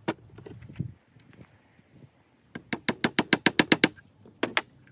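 Hammer tapping a wooden dowel perch into its hole in a wooden birdhouse: a knock at the start, then a quick run of about a dozen light taps, then two more near the end.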